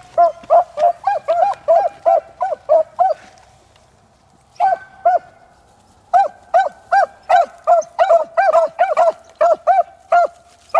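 Beagles baying in short, quick barks, about three a second, while running a rabbit's track. The barking breaks off a little after three seconds, gives two barks, and resumes steadily about six seconds in.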